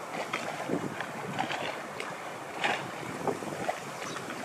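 Steady outdoor wash of wind noise on the microphone, with scattered light clicks and knocks.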